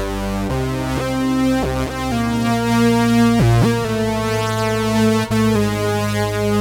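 Synthesizer patch played on a Yamaha PSR-A5000 arranger keyboard: sustained, bright synth notes and chords changing every second or so, with a quick dip in pitch and back about three and a half seconds in.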